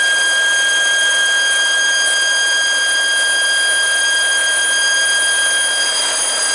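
Tanker truck's on-board compressor running steadily, a constant high whine over a rushing hiss, building air pressure in the tank trailer so the load can be blown out under pressure.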